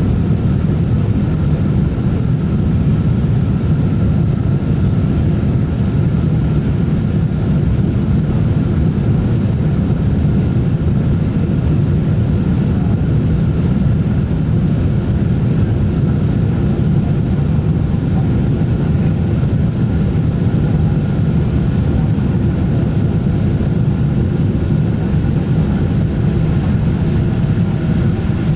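Airliner in flight: a steady, even drone of engines and airflow, low-pitched with a faint high tone above it.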